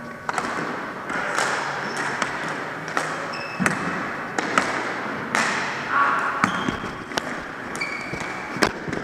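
Floor hockey play on a hardwood gym floor: sticks clacking against the ball and the floor in quick, irregular knocks, with short sneaker squeaks, all echoing in the hall.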